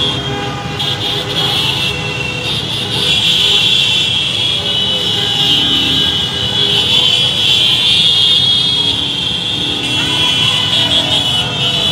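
Slow-moving street traffic: vehicle engines running under a steady high-pitched din that grows louder about three seconds in, with crowd voices mixed in.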